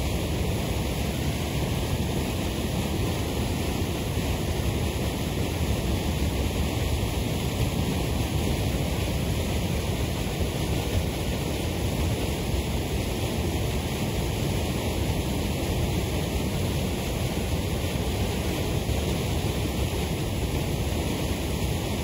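Waterfall: falling water rushing steadily, with no change in level and no separate splashes or other events.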